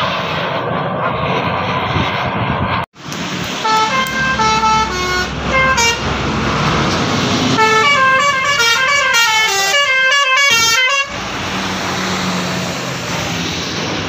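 Tour bus 'telolet' horn, a multi-tone musical air horn, playing its jingle over road traffic. It sounds a short run of stepped notes about four seconds in, then a longer, louder melody of several tones rising and falling together that cuts off suddenly about eleven seconds in.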